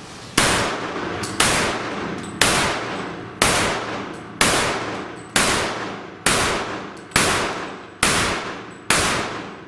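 Ten shots from a Ruger American pistol in .45 ACP, fired at a steady pace of about one a second. Each report is followed by a long echo that dies away before the next.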